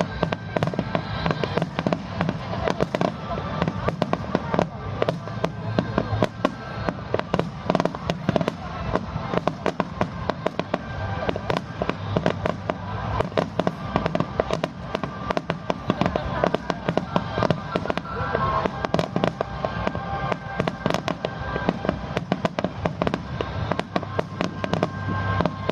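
Aerial fireworks bursting close by in a rapid, continuous barrage of bangs and crackles, with music playing along.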